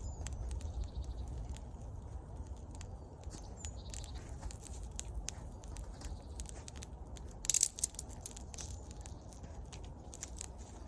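Small campfire of damp sticks, lit with vegetable oil, crackling with irregular pops, with a short burst of louder snaps about seven and a half seconds in, over a low rumble.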